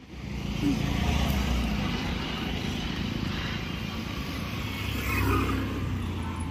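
Street traffic noise: the steady rumble of passing vehicles' engines and tyres, swelling slightly about five seconds in.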